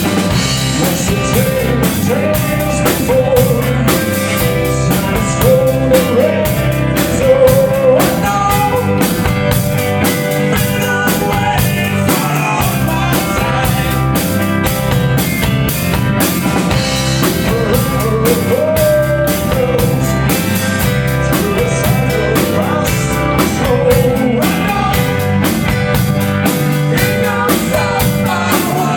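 Rock music with a drum kit keeping a steady beat under a melody line.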